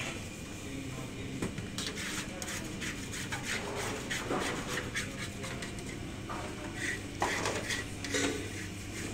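Metal baking trays scraping and knocking on a stainless steel worktable as sponge cake sheets are turned out and slid into place, in irregular rubs and swishes over a steady low hum.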